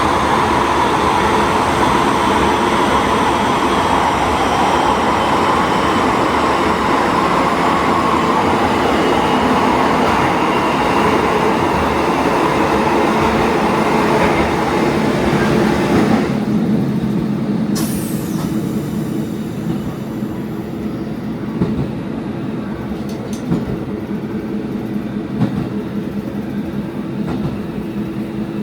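A diesel railcar running along the line, with a steady mix of engine and track noise. About 16 seconds in, the hissing upper part of the sound falls away suddenly and a lower rumble remains, with a few single clicks from the wheels over rail joints.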